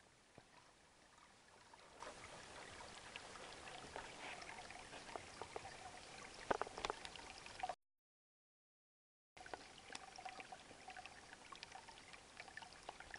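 Small headwater stream trickling and gurgling over rocks, faint, with scattered small clicks. The sound cuts out completely for about a second and a half past the middle, then returns.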